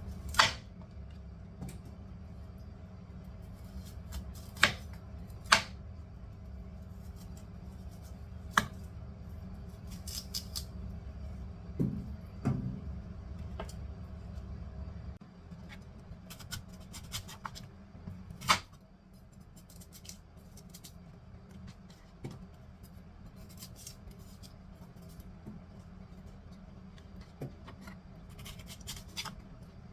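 Cutting fruit for soup: scattered sharp clicks and knocks, a handful of them louder, over a low steady hum that drops away about halfway through.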